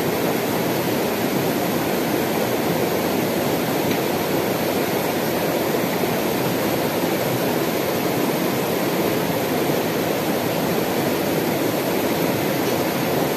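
Shallow mountain river rushing over rocks and small rapids: a steady, unbroken water noise.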